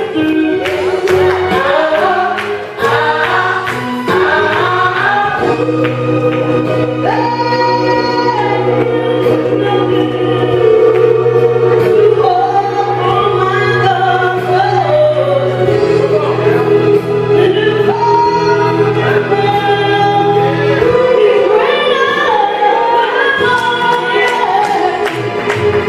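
Gospel vocal group singing in harmony with instrumental accompaniment, holding long notes through the middle, with a steady beat at the start and again near the end.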